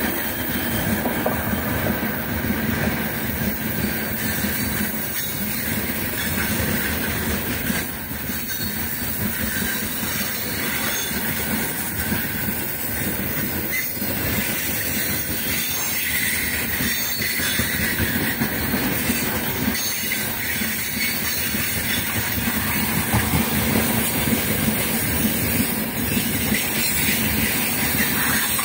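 A heavy freight train of open-top gondola wagons rolling past close by: steady noise of many steel wheels running over the rails.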